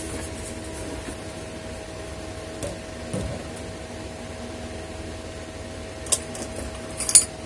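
Steady hum of an electric room fan, with a few light clicks and knocks of things being handled on a desk; the sharpest click comes near the end.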